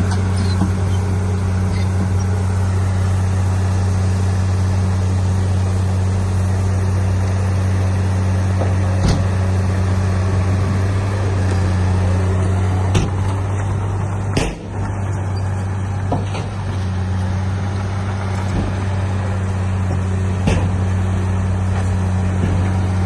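Heavy diesel earthmoving machinery running steadily, a deep, even engine drone. A few sharp knocks are heard over it, and the engine sound dips briefly about midway.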